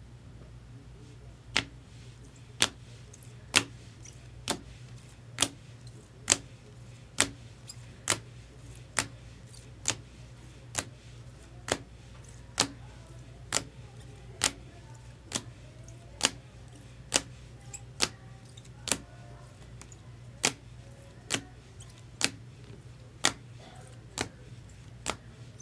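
Short, sharp clicks at a very even pace of about one a second, over a steady low hum.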